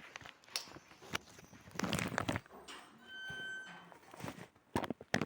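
Scattered light knocks and scuffs, like footsteps and handling, with a brief high beep about three seconds in.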